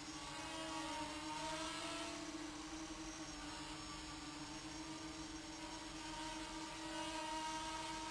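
Faint whirring of a micro quadcopter's four HobbyKing AP-03 7000 kV brushless motors spinning 3x2 propellers in flight, the higher whine wavering up and down in pitch as the throttle changes.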